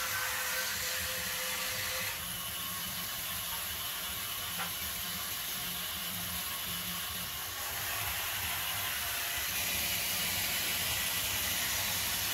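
Steady hissing background noise of a workshop, with a low hum underneath and one faint click about four and a half seconds in.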